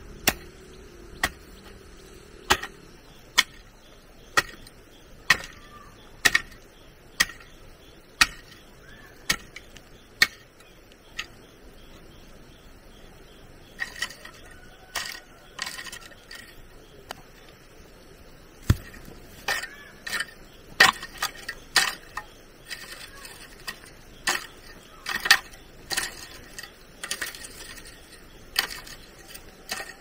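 Sharp strikes of a tool, steady at about one a second for roughly the first ten seconds. After a short pause they come faster and irregular, some in quick pairs.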